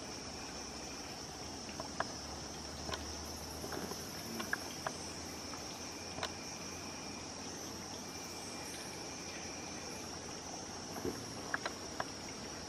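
Steady high-pitched drone of forest insects, with brief sharp ticks now and then and a few close together near the end.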